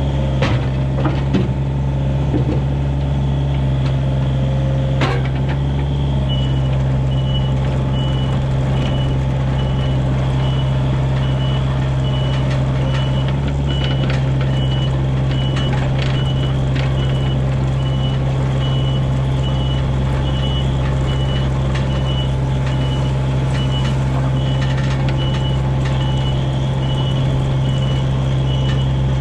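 Diesel engine of a piece of heavy equipment running steadily. A few metal clanks come in the first five seconds, then a travel/backup alarm starts beeping at an even pace about six seconds in.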